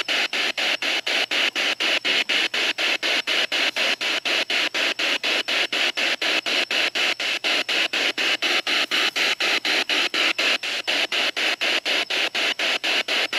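Spirit box sweeping radio frequencies in reverse at a 250 sweep rate, antenna down: a steady hiss of static cut into short pieces about four times a second.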